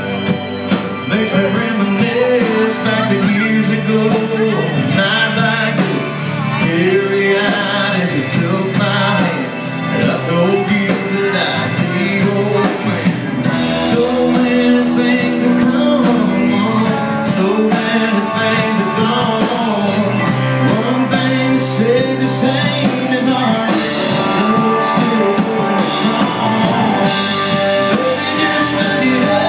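A country band playing live: singing over acoustic and electric guitars and a drum kit with a steady beat, heard from within the audience.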